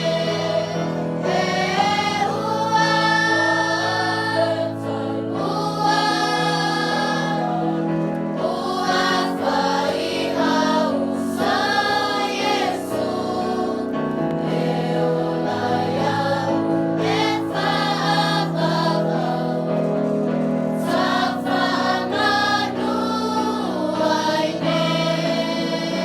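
A choir singing a hymn, with long-held accompaniment chords underneath.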